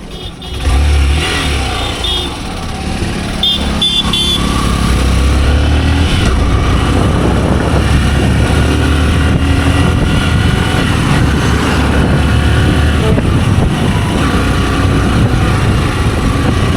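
Hero Super Splendor's 125 cc single-cylinder engine running under way, with road and wind noise, getting louder about a second in. Short horn beeps sound twice in the first few seconds.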